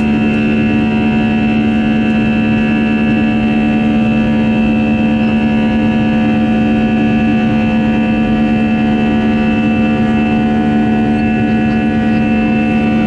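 CFM56 turbofan engine of an Airbus A319 climbing out after takeoff, heard inside the cabin over the wing: a loud, steady drone with several steady whining tones over it.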